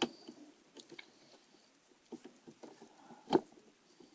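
Faint clicks and taps of small plastic parts being handled while a laptop's internal cable is fitted into its connector, with a sharp click at the start and a louder one about three seconds in.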